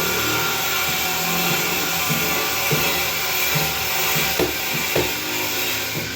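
A power tool running steadily with a constant loud hiss, with faint regular knocks underneath.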